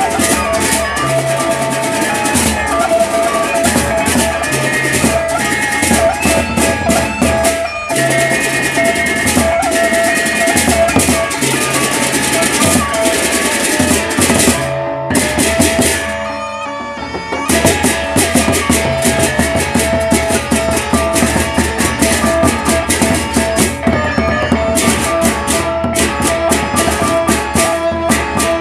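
Gendang beleq ensemble playing: large double-headed barrel drums beaten with sticks, fast clashing hand cymbals and a steady ringing metal tone. The playing breaks off for about two seconds near the middle and then comes back in at full strength.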